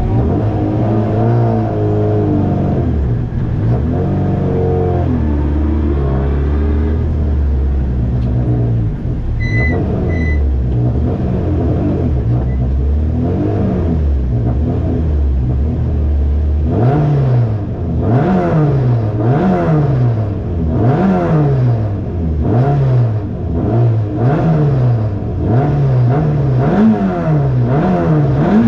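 Volkswagen Golf 2 GTI 16S Group A race car's 16-valve four-cylinder engine heard from inside the cabin. It idles with a few throttle blips, then about two-thirds of the way through it is revved repeatedly, about once a second, as the car is held on the hillclimb start line. Two short high beeps come about a third of the way in.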